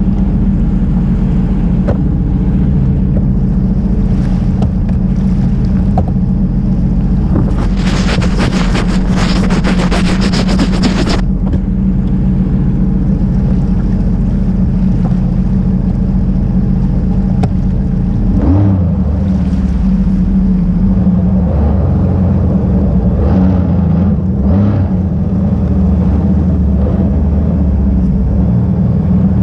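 Jet ski engine running steadily under way, with water and wind rushing past. A loud hiss lasts about three seconds from around eight seconds in, and the engine note changes about eighteen seconds in.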